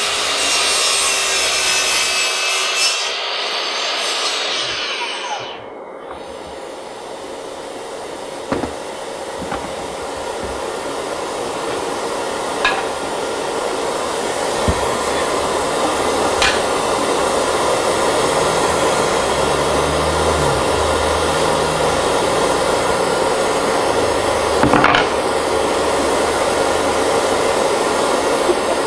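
Makita XSL06 36V brushless cordless 10-inch sliding miter saw with a 40-tooth blade, whining as it cuts through a 2x12 board for the first five or six seconds. After that a steady rushing noise from the dust extraction runs on, growing louder toward the end, with a few sharp knocks as the wood and saw are handled.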